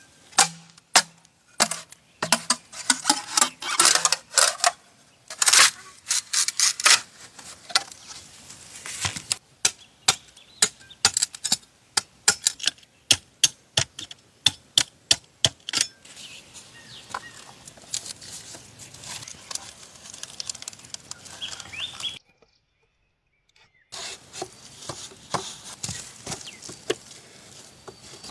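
A heavy knife chopping and splitting green bamboo on a wooden block: a quick run of sharp chops, several a second, for about the first half, then quieter scraping and cracking as the split strips are shaved and handled. The sound drops out entirely for about two seconds a little after twenty seconds in.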